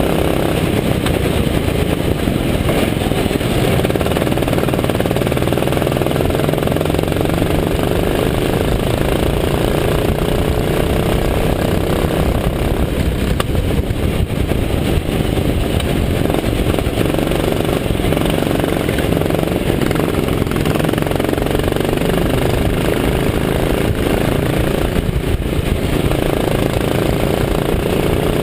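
Go-kart engine running hard at speed, heard from onboard under a steady rush of wind noise. Its pitch climbs near the start and again near the end as the kart accelerates, with a couple of brief dips in between.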